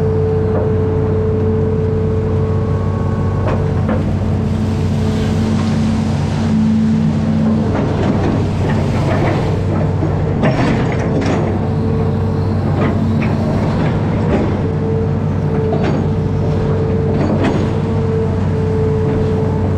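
Amphibious excavator's diesel engine running steadily, with a cluster of sharp knocks and clanks from about eight to fifteen seconds in.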